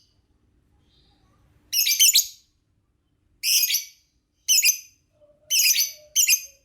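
Lovebird chirping in about five short bursts of rapid, high, shrill notes, after a quiet start of nearly two seconds.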